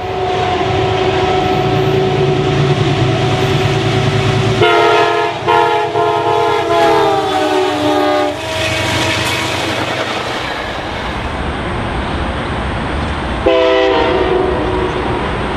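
Train air horn sounding long, multi-note chord blasts, the chord sliding down in pitch as the train passes, then the rumble and rattle of the passing train, with one more short horn blast near the end.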